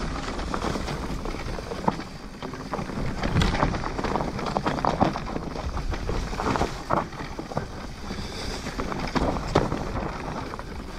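Mountain bike ridden along a dirt trail: a steady rush of wind on the microphone and tyres rolling over the ground, with frequent knocks and rattles from the bike over bumps.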